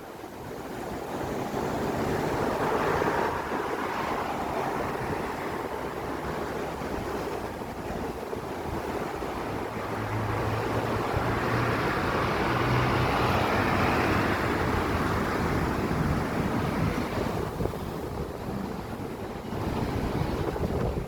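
Strong wind gusting and buffeting the microphone: a continuous rushing noise that swells twice, most strongly in the middle, and eases toward the end.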